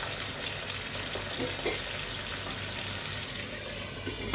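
Meat, onion and tomato stew with added water sizzling steadily in a frying pan on a gas burner. Near the end there is one short clink as a glass lid is set on the pan.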